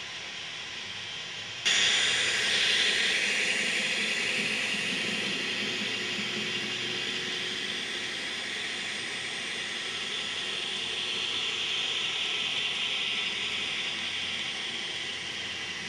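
N scale model passenger train rolling along the track close by: a steady hissing rumble that comes in suddenly about two seconds in and slowly eases off.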